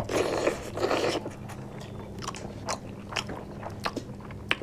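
People eating chicken with their hands, close to the microphone: two bites into chicken pieces in the first second, then a run of sharp mouth clicks and smacks while chewing.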